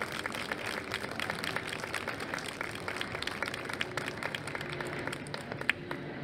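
A small audience applauding: many scattered, irregular hand claps.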